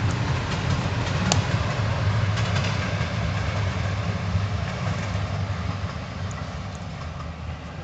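Passing passenger train: a steady low rumble that fades over the last couple of seconds. A single sharp knock about a second in.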